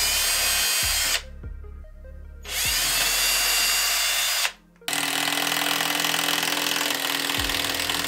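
Cordless drill spinning up and boring pilot holes for lag screws through a brass strike plate into a wooden door jamb, in two runs of about one and two seconds. About five seconds in, a longer, steadier run follows: a cordless impact driver driving a screw into the strike plate.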